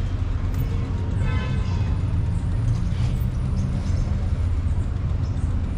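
Steady low rumble of city street traffic, with a brief high-pitched tone about a second in.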